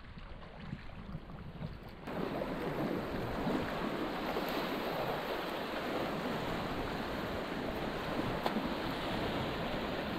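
Fast river water rushing and churning around kayaks surfing a standing wave, heard from a camera on the boat. It is steady throughout and gets clearly louder about two seconds in.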